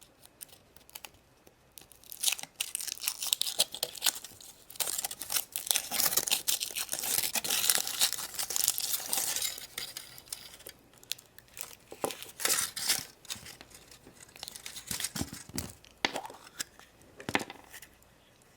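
Foil wrapper of a chocolate surprise egg being torn and crinkled open by hand, in uneven bursts, with a few sharper clicks near the end.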